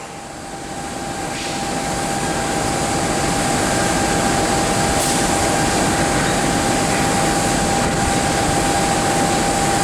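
CC206 diesel-electric locomotive running loudly close by, its sound swelling over the first few seconds and then holding steady, with a steady whine over the engine noise.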